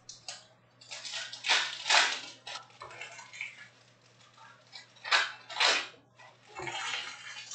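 Foil trading-card packs crinkling and tearing as they are handled and ripped open by hand, in a series of short, sharp crackles with the loudest about two seconds in and again around five to six seconds in.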